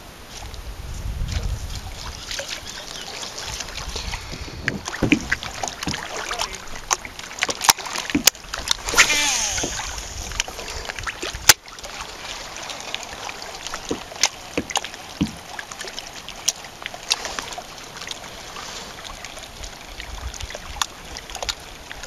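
Water lapping and splashing around a plastic kayak on the move, with scattered sharp clicks and knocks.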